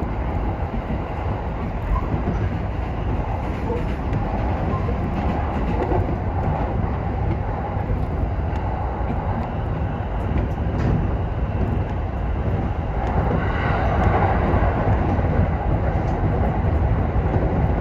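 E231-1000 series commuter train running along the track, heard from inside the car: a steady rumble with scattered clicks of the wheels on the rails. It grows somewhat louder about thirteen seconds in.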